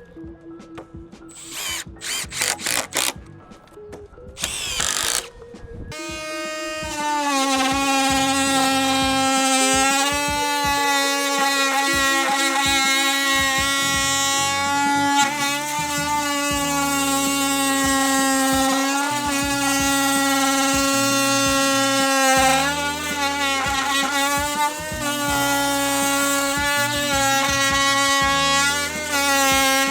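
Oscillating multi-tool fitted with a Spyder wood-and-PVC blade, starting about six seconds in and running steadily with a high buzz that wavers now and then as the blade cuts. A few knocks come before it starts, and music with a changing bass line plays underneath.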